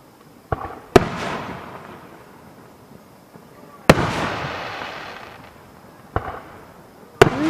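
Aerial fireworks shells bursting: five sharp bangs, the loudest about a second in and just before the four-second mark, the two big ones each trailing off in a fading tail for a couple of seconds.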